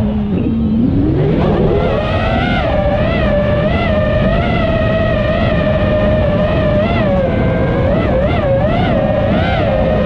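iFlight Nazgul5 five-inch FPV quadcopter's brushless motors whining, the pitch rising and falling constantly with throttle. The pitch drops low just after the start, then climbs back about a second or two in. A steady low rumble of wind runs underneath.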